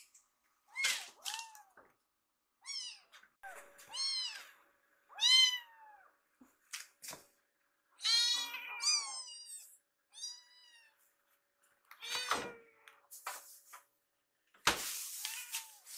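Kittens meowing repeatedly while waiting to be fed: short, high-pitched calls every second or two, some overlapping. There is a brief rustling noise near the end.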